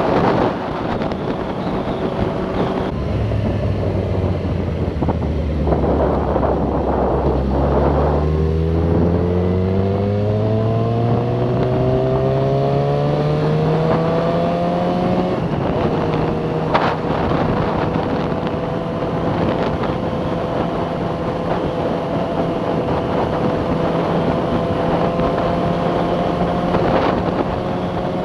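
Yamaha FZ6R's inline-four engine under way on the road: the pitch rises steadily as the bike accelerates through a gear, drops at a shift about halfway through, then holds steady at cruising speed, with wind rushing over the microphone.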